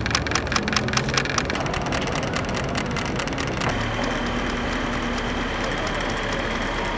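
Small motor-driven mechanism of a home-made begging-hand sculpture running, built from an old Walkman and a plastic hand. It clicks about five times a second at first, turns to faster, less even ticking, and about three and a half seconds in settles into a steady whirring hum.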